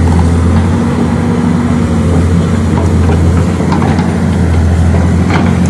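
Excavator's diesel engine running steadily, with a few faint knocks about three to four seconds in.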